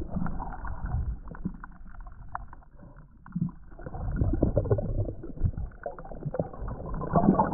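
Muffled underwater sound of a snorkeler moving in shallow water: low sloshing and gurgling with many small clicks and crackles, dulled by the water.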